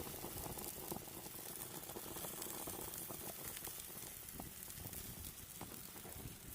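Food sizzling on a barbecue grill: a steady hiss with many small crackles and pops.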